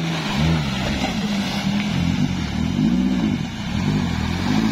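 Modified Daihatsu Taruna 4x4's engine revving up and down repeatedly as the SUV drives through a muddy puddle.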